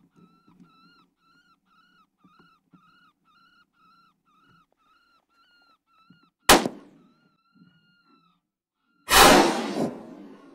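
An electronic predator call plays a rapid series of short squealing distress cries, about three a second. The calling then stops and two loud rifle shots follow: a sharp crack about six and a half seconds in, and a longer blast with a trailing echo near the end.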